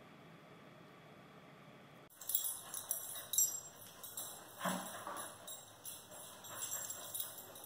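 Faint room tone, then from about two seconds in an irregular metallic jingling of dog collar tags as dogs walk and trot about, coming in uneven bursts.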